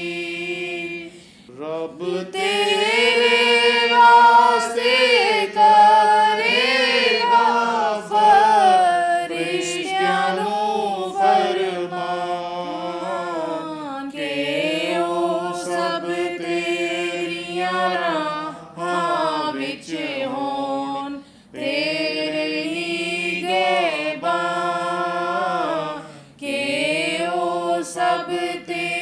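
A small group singing a Punjabi Zabur (metrical psalm) without accompaniment, women's voices leading. The long sung lines are broken by brief breath pauses.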